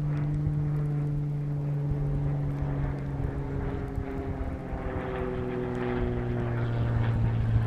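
Engine drone: a steady hum whose pitch sinks slowly and grows a little louder near the end.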